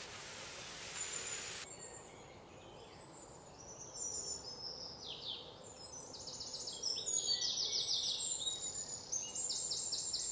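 Small birds chirping and trilling in quick runs of repeated high notes, growing louder from about four seconds in. Before that, a steady outdoor hiss cuts off abruptly less than two seconds in.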